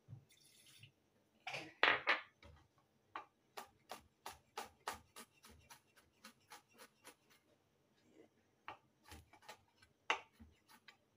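Chef's knife mincing garlic on a wooden cutting board: a run of sharp taps of the blade on the board, about three a second, with a louder knock and scrape about two seconds in and a short pause before the taps resume.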